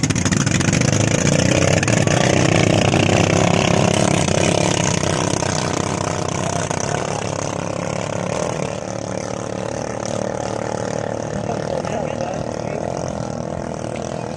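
Racing outrigger boat's engine running flat out, loud at first and fading steadily from about five seconds in as the boat speeds away across the water.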